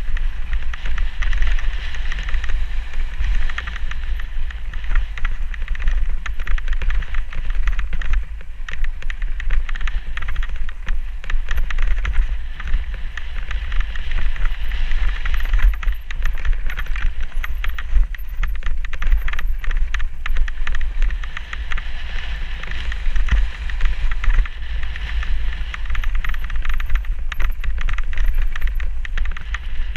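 Mountain bike riding fast down rough singletrack: tyres on dirt and stones, with a steady stream of small knocks and rattles from the bike, under a heavy rumble of wind buffeting the camera's microphone.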